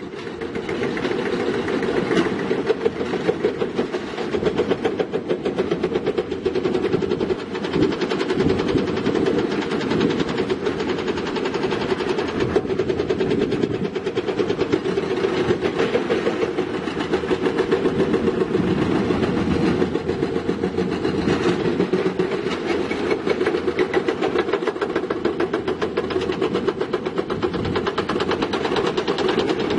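Diesel engine of a heavy earthmoving machine running steadily under load, with a fast, even pulsing throb.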